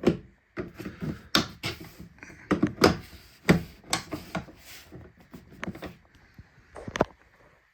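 Plastic light lens cover of a garage door opener being fitted back on: a string of irregular plastic clicks, knocks and rattles, with a final sharp click about seven seconds in.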